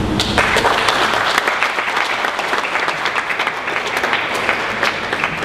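Audience applauding: many hands clapping steadily for about five seconds.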